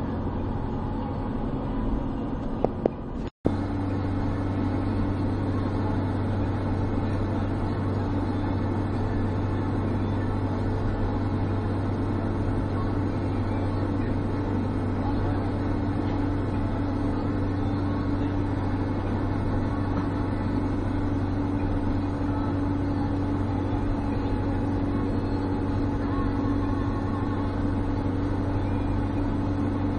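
Steady drone of a car's engine and tyres at highway speed, heard from inside the cabin. A few clicks and a very brief cut-out in the audio come about three seconds in.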